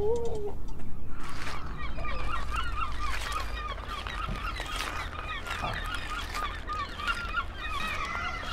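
A flock of birds calling: many short overlapping calls start about a second in and carry on, over a low steady rumble. At the very start a long wavering tone fades out.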